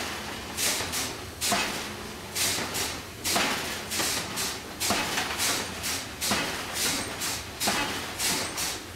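Power forging hammer striking a white-hot steel billet in a steady rhythm of about two blows a second.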